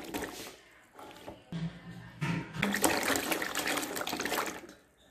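Cut potato strips being rinsed by hand in a steel bowl of water: uneven sloshing and splashing as the hand stirs them around.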